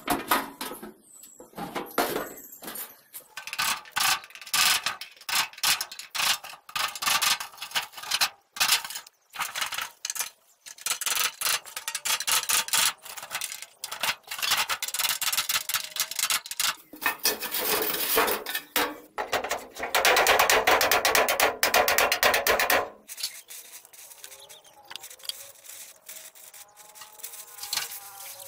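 Workshop hand-tool work: irregular scraping, rubbing and knocks, with a dense rasping stretch of several seconds past the middle that stops suddenly, followed by quieter rustling.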